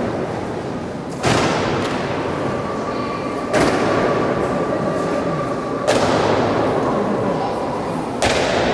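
Ceremonial honour guards' boots stamping in a slow goose-step march: four sharp, echoing stamps about two and a half seconds apart, over steady background noise.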